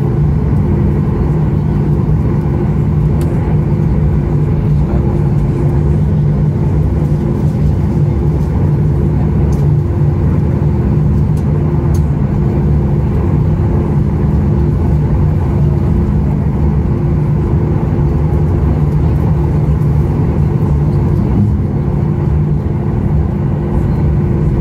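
Cabin noise aboard a Boeing 737 MAX 8 taxiing: its CFM LEAP-1B turbofan engines running at taxi power, a steady low hum with a few held tones and no change in level.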